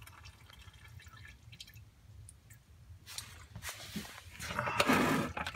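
Engine oil draining from the oil pan's drain hole into a plastic pail, a faint trickling and dripping stream. From about three seconds in, louder rubbing and scuffing noise takes over.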